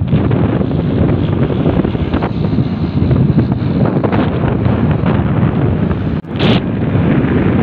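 Strong wind buffeting the microphone on a moving motorcycle, a steady loud rush with the bike's running noise underneath. About six seconds in it drops out briefly, then comes back with a short scratchy burst.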